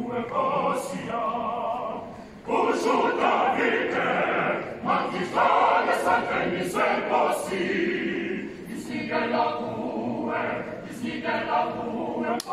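Mixed choir of men and women singing together in short phrases with brief breaks between them, dipping briefly a little after two seconds in.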